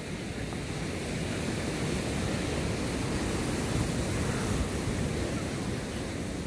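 Ocean surf breaking and washing up a sandy beach: a steady rushing wash that swells a little about a second or two in and eases near the end.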